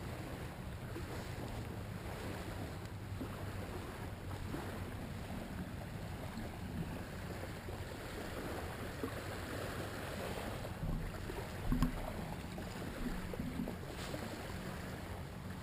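A steady outdoor hiss of wind on the microphone over small waves lapping at the shore, with a brief low thump about twelve seconds in.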